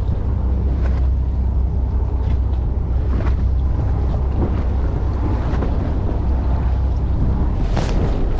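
Wind buffeting the microphone over the steady low rumble of a fishing boat at sea, with water washing around the hull. There is a brief rushing swish near the end.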